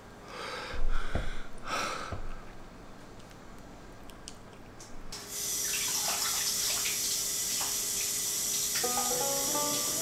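Kitchen faucet running into a sink, a steady hiss of water that starts about five seconds in. Before it, a few breathy puffs as air is blown into a small rubber water balloon, and faint music comes in near the end.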